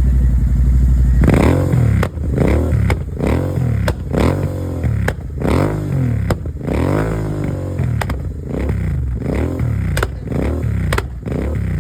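Royal Enfield Continental GT650's 648 cc parallel-twin engine idling through a Red Rooster full-system exhaust, then revved in a run of about ten quick throttle blips from about a second in. Each blip rises and falls, with sharp pops and crackles from the exhaust as the revs drop.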